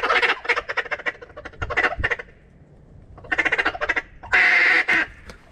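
Duck call blown in runs of quick quacks, a short pause about two seconds in, then more quacks ending in a few longer, louder notes.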